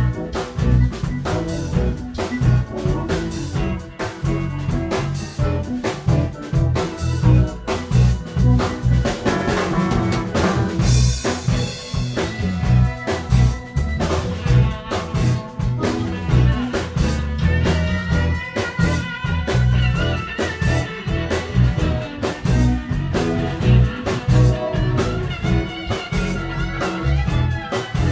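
Live blues-rock band playing an instrumental boogie on drum kit, bass guitar, keyboards and electric guitars, with no singing. A cymbal crash comes about eleven seconds in, and a wavering lead line runs through the second half.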